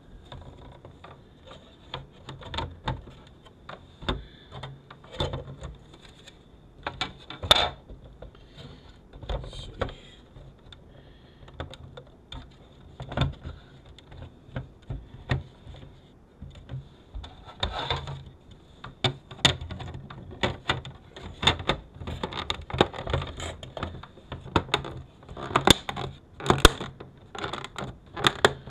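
Plastic housing and metal frame of a car's overhead video entertainment unit being handled and fitted back together: irregular clicks, taps and knocks, several sharp ones, over a faint steady high-pitched tone.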